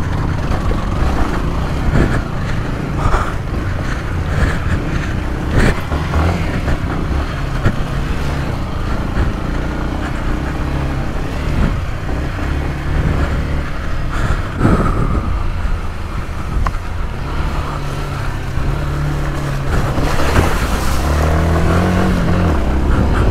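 Yamaha dirt bike engine running under changing throttle while riding a motocross trail, heard from the bike itself; the engine pitch goes up and down and climbs near the end.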